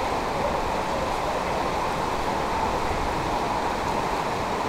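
Steady rushing of fast-flowing floodwater, an even noise without breaks.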